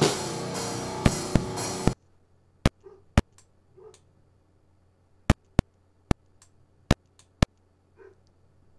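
A multitrack drum-kit demo recording plays back for about two seconds and then cuts off. After that only the kick drum is heard through a noise gate with a high threshold: it is reduced to seven short, sharp clicks of the beater attack, irregularly spaced.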